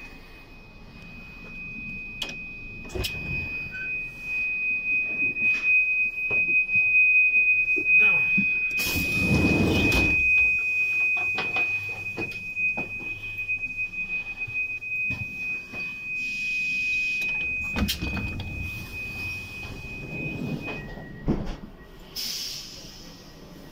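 Automatic sliding doors of a passenger train's inter-car passage opening and closing, with knocks and clicks and a loud rush of noise about ten seconds in. A steady high-pitched tone runs through most of it and stops a few seconds before the end, followed by a short hiss.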